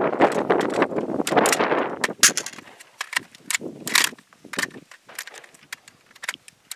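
Sharp metallic clicks and clacks as an AK-pattern rifle is handled and its polymer magazine is rocked out of the magazine well, after a rustling noise in the first two seconds.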